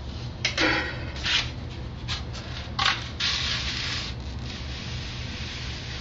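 Foam block being turned by hand against a hot-wire cutter: a handful of rough rubbing and scraping sounds in the first four seconds, over a steady low hum.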